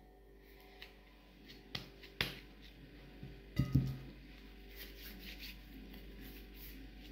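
Scattered light taps and clicks of modelling clay and its tubs being handled on a table, with a sharper tap about two seconds in and a duller thump a little past halfway.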